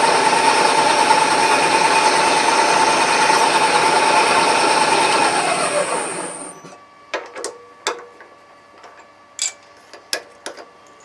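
Milling machine running steadily with a constant tone and a high whine, then switched off about six seconds in, its pitch falling as it spins down. Several sharp clicks and knocks follow.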